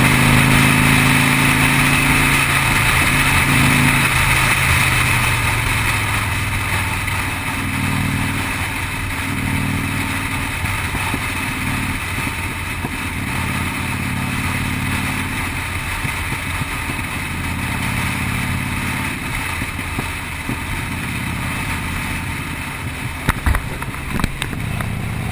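Cruiser motorcycle engine running on the move, its pitch shifting up and down with the throttle, under a steady rush of wind. A few sharp knocks come near the end.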